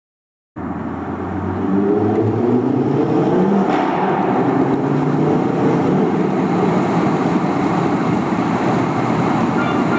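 Ford Focus RS with a Stage 1 tune driving through a road tunnel, its engine note rising and falling over rushing wind and road noise. The sound cuts in abruptly about half a second in.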